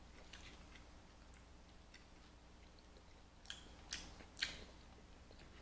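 Quiet chewing and soft wet mouth sounds of someone eating, with three sharper mouth clicks between about three and a half and four and a half seconds in.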